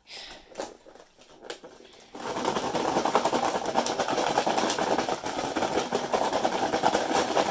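Fried popcorn chicken pieces being shaken in a lidded plastic food tub to coat them in seasoning powder. There is a fast, dense rattle of pieces tumbling against the plastic, starting about two seconds in after a few single knocks.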